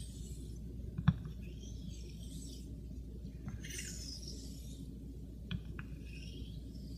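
Wedge-ground Greaves straight razor being stroked along a wet Shapton Pro waterstone while its bevel is set. Each stroke gives a soft, high scraping hiss, several strokes in all, with a few light clicks as the blade touches down, the sharpest about a second in.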